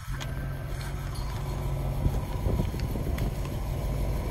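1940 Ford pickup's 221 cubic-inch flathead V8 idling steadily, heard from behind at the exhaust.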